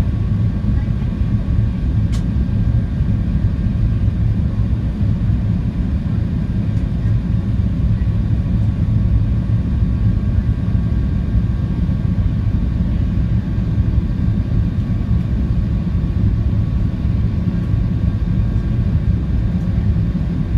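Steady low rumble inside the cabin of an Airbus A380, even throughout, with faint steady hum tones over it.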